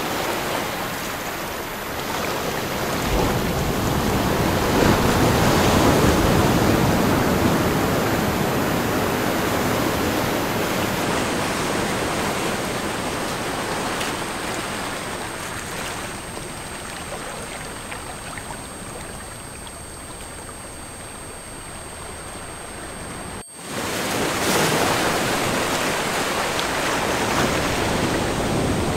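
Recorded ocean waves: the surf swells, slowly ebbs, then briefly cuts out about three-quarters of the way through before swelling again. Faint steady high-pitched tones run above the surf.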